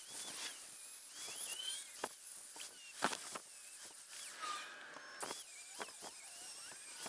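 Scattered light clicks and clinks of metal exhaust parts, a V-clamp and turbo downpipe, being handled and test-fitted, with short high chirps in the background.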